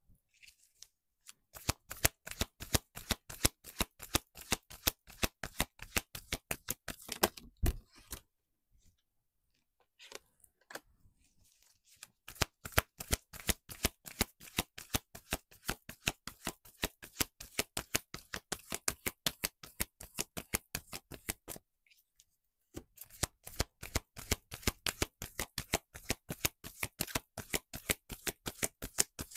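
A deck of tarot cards shuffled by hand in three spells of quick card-on-card clicks, pausing about eight seconds in and again a little after twenty seconds.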